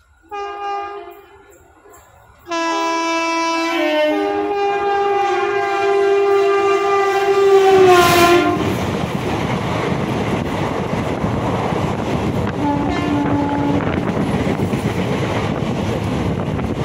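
An express train locomotive's horn sounds a short blast, then a long one whose pitch drops as the locomotive passes close by. Then comes the loud, steady rush and clickety-clack of the coaches going past at speed, with another brief horn note partway through.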